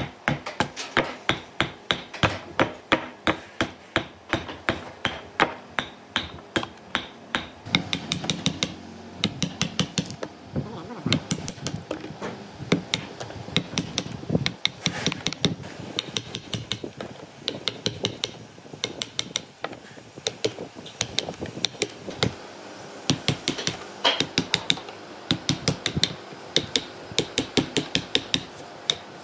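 Wooden mallet striking a chisel to strip bark from a tree stump: a steady run of sharp knocks, a few a second.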